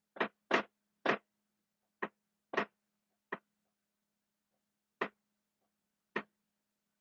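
Dry-erase marker writing on a whiteboard: about eight short, separate strokes at an uneven pace, with a faint steady hum beneath.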